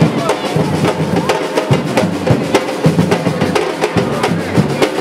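Batucada drum band playing a fast, steady rhythm, deep drum beats under sharp, crisp hits.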